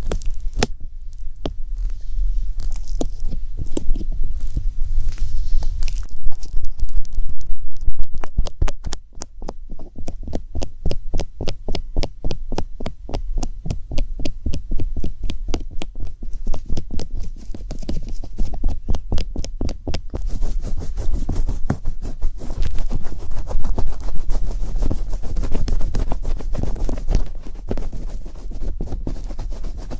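Close-miked ASMR tapping: rapid, fairly even taps, about five a second through the middle stretch, over a steady deep rumble.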